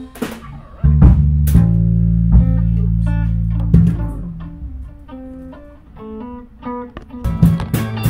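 Band music: electric guitar and bass guitar playing, with drums coming in near the end.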